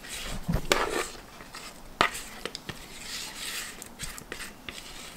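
Spatula scraping thick cake batter out of a mixing bowl into a round metal cake pan, with soft scraping and a few light knocks of bowl and spatula against metal, the sharpest about two seconds in.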